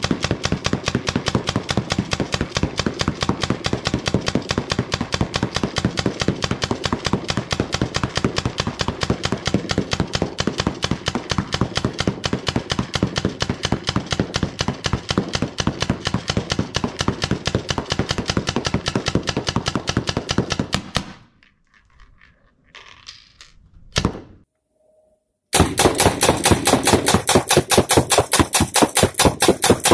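Spyder Victor semi-auto paintball gun firing riot nylon balls in rapid, evenly spaced shots, several a second. The string stops about two-thirds of the way in, there is a single shot a few seconds later, and then rapid fire resumes near the end.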